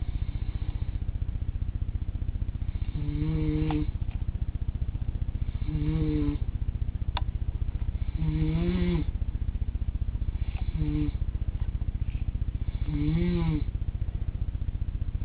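Rhythmic snoring: five pitched, buzzing snores about every two and a half seconds, each lasting around half a second to a second, over a steady low rumble. A single sharp click comes about seven seconds in.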